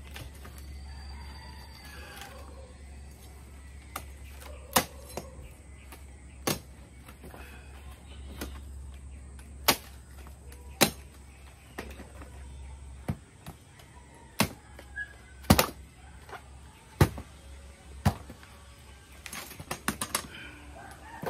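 A bolo knife chopping dried coconut palm fronds: a dozen or so sharp, single whacks at uneven intervals a second or two apart, then a quick flurry of lighter strikes near the end.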